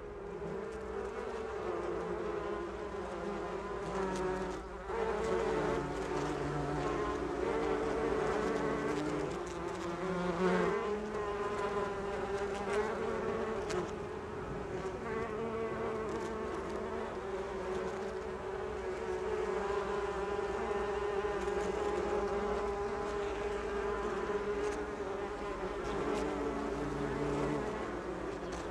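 A swarm of honeybees buzzing around their hives, many wavering drones layered together, over a steady low hum.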